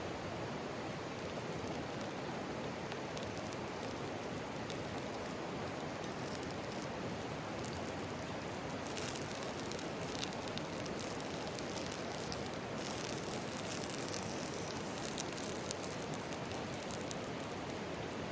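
Mountain stream rushing steadily, with a dense scatter of crackling and popping over it that is heaviest in the middle stretch.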